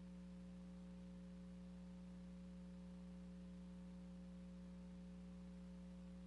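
Near silence with a faint, steady electrical hum and light hiss, the tone of a soundless film transfer.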